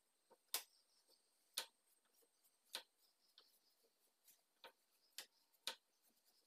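Light, irregular clicks and taps, about seven in six seconds, from a hand graining tool working against a painted ceiling panel.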